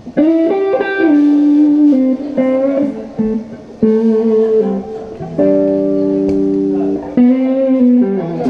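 Guitar playing a slow run of chords, each struck and left to ring for a second or more before the next.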